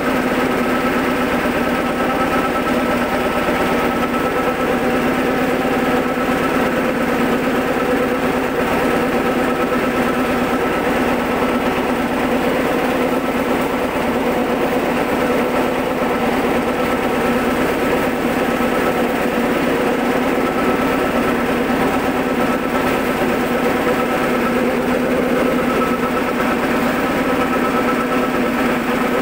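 Stainless-steel soybean cracking and hull-separating machine running steadily as it processes split soybeans, a constant mechanical hum over a steady rushing noise.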